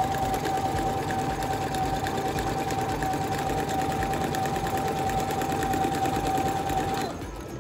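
Singer Bouquet 9700 computerized sewing machine running an overlock stitch along a fabric edge at a steady speed, its motor giving a steady whine over a fast, even stitch rhythm. It stops abruptly about seven seconds in when the start/stop button is pressed.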